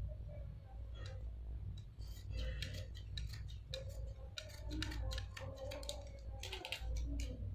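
Scissors snipping through cotton cloth, cutting a neckline: a run of short, quick snips starting about two seconds in, over a low steady hum.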